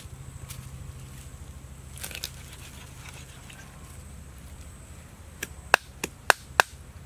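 A knife chopping through a fish on a round chopping block: a few faint ticks about two seconds in, then five sharp chops in quick succession near the end, about three a second.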